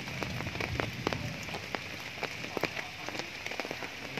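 Steady rain falling, with irregular drops tapping sharply close by several times a second.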